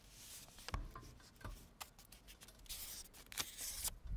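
A sheet of origami paper being handled and folded along its diagonals: paper rustling and rubbing, with a few short crisp crackles as it is creased.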